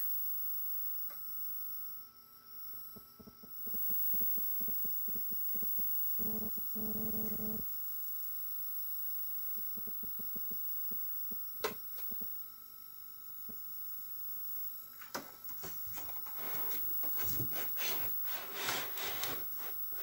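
Steady electrical hum and high-pitched whine from powered bench electronics, with a short buzz about six seconds in, a single sharp click near the middle, and a stretch of clicking and rustling handling noise over the last five seconds.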